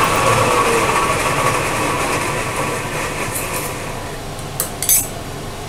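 Milling machine motor and spindle running down after being switched off, the hum fading over about four seconds. Two light metallic clinks near the end.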